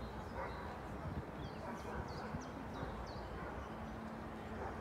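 Small birds chirping in a few short, quick high calls in the middle, over a steady bed of low outdoor background noise.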